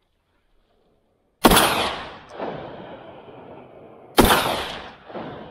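Two shots from a Mk12 shotgun, about a second and a half in and near the end, nearly three seconds apart. Each shot is followed by a long fading rumble and a second, weaker echo about a second later from across the valley.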